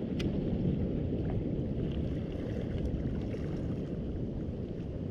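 Steady rush of sea water and wind on a wearable camera's microphone while wading in shallow surf, with a sharp click about a quarter second in.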